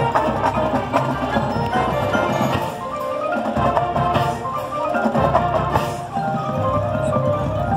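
Marching band playing its field show, with the front ensemble's mallet percussion (marimbas and xylophone) prominent in quick running note figures over the winds. The low brass and drums drop out briefly about three seconds in and again about five seconds in.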